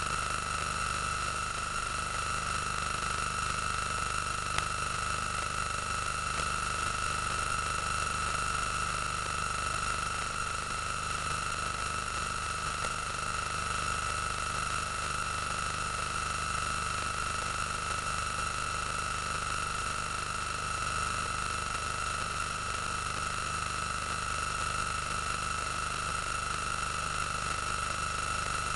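Steady hiss with a constant high-pitched whine and a ladder of overtones above it, unchanging, with no distinct events.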